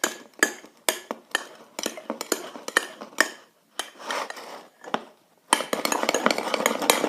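A utensil stirring yellow gouache paint into slime in a container, clicking and scraping irregularly against the sides, with a denser run of quick clicks near the end.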